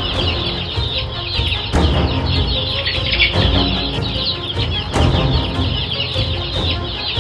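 Dense, continuous chatter and squawking of a large flock of birds, over music with a heavy beat that hits about every second and a half.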